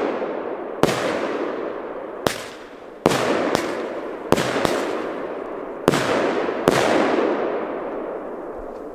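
Aerial firework rockets bursting overhead: about eight sharp bangs in seven seconds, each followed by a long rolling echo that fades away.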